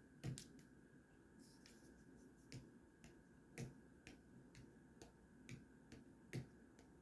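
Faint, sharp clicks at an uneven pace, roughly one to two a second, over an otherwise near-silent room.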